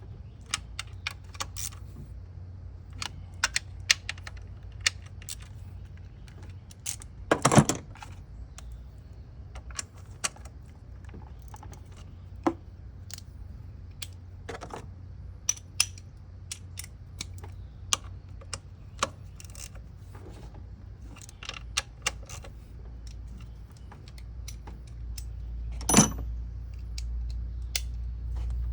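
Hand tools and metal parts clicking and clinking irregularly, with two louder knocks, one about seven seconds in and one near the end, over a low steady hum.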